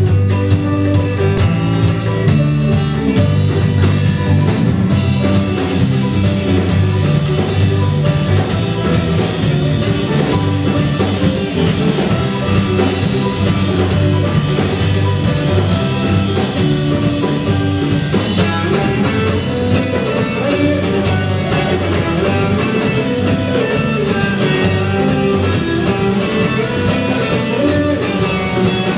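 Live rock band playing a song on electric guitar, electric bass, keyboard and a Yamaha drum kit, with a steady beat.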